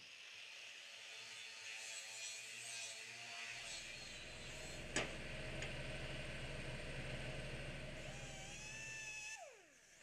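Hand-held power tool running with a steady whir, then switched off near the end, its pitch falling as it spins down. A single sharp click about halfway through.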